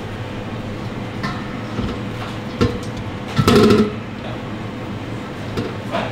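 Knocks and a clatter of vegetables being handled and set down in a stainless-steel sink, the loudest about three and a half seconds in, over a steady background hum.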